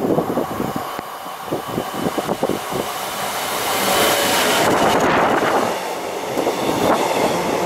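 Class 66 diesel-electric freight locomotive (EMD two-stroke diesel) passing at speed with an intermodal container train. Its engine noise swells to a peak as it goes by about four seconds in, followed by the steady rumble of the container wagons rolling past. Wind buffets the microphone in the first seconds.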